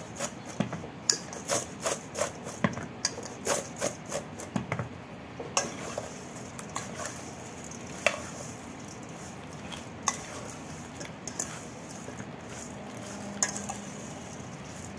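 Zucchini sticks tossed in a stainless steel bowl: a rhythmic clatter of about three knocks a second as the bowl is shaken, stopping about five seconds in. Then quieter rubbing with a few taps as the breadcrumb-coated sticks are mixed by hand against the steel.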